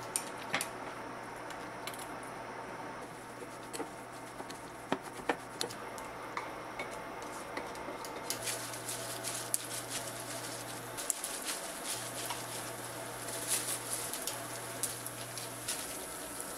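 Light kitchen and table handling: many small, scattered clicks and taps, busier in the second half, over a steady low hum.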